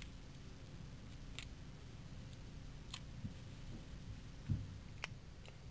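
Faint, sharp clicks of small metal parts roughly every second and a half as the valve cover screws of an O.S. FS-52 model four-stroke engine are backed out with a hex key and the cover lifted off. A duller knock about four and a half seconds in is the loudest sound.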